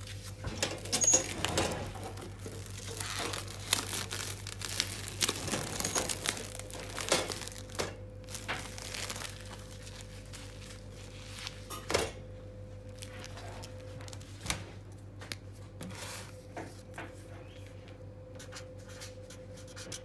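Plastic cling film being pulled off a roll, stretched over a foam meat tray and torn off, crinkling and tearing in quick bursts, busiest in the first half, with a sharp click about twelve seconds in. A steady low hum runs underneath.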